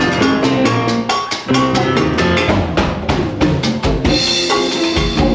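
Latin jazz band playing, with a busy drum kit driving a steady rhythm under sustained pitched instruments.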